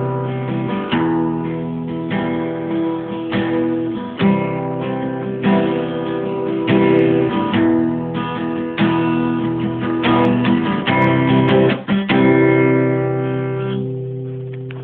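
Acoustic guitar strummed in chords, a fresh strum about every second. The last chord is left to ring and slowly fade near the end.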